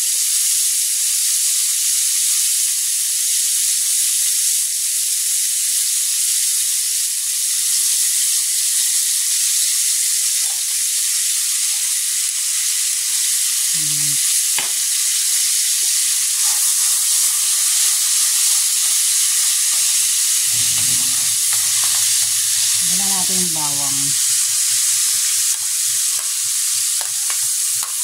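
Margarine sizzling as it melts and fries in a metal wok: a steady hiss.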